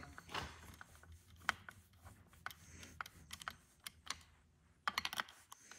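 7/16 nut driver turning lock nuts onto their bolts in a steering column hub: faint, scattered small metallic clicks and ticks, with a quick run of clicks near the end. The nuts are being run down but are not yet fully tight.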